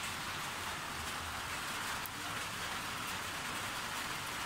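Steady rain falling, an even hiss with faint scattered drops.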